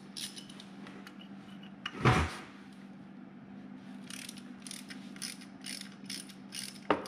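A 5 mm Allen wrench working the hex check plug on a John Deere 35G mini excavator's track drive motor: a single clank about two seconds in, then a run of light metal clicks at about three a second as the plug is turned loose.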